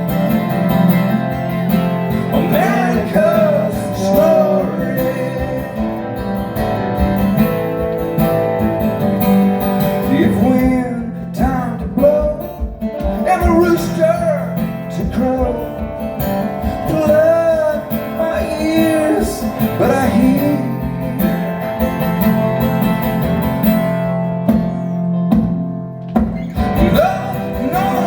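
A song performed live: guitar with a man singing over it.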